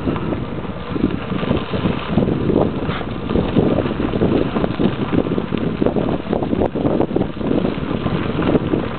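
Wind buffeting the microphone of a moving bicycle, with bicycle tyres rolling over a gravel road underneath.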